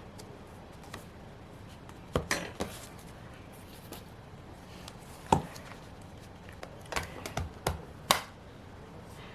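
Light taps and clicks of stationery being handled at a desk while a planner page is decorated: about eight short, sharp ticks in loose groups, the loudest about five seconds in.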